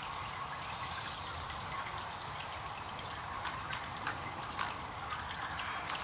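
Small fountain jet splashing and trickling steadily, with scattered sharp drip splashes, more of them in the second half.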